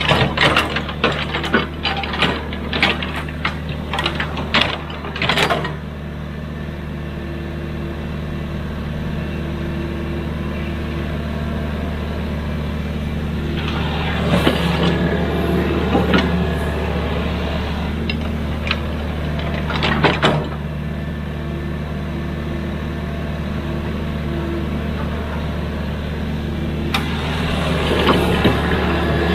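Hydraulic excavator's diesel engine running steadily, with a rapid run of sharp knocks and clanks for the first five seconds or so and more clatter about halfway through, again a few seconds later and near the end.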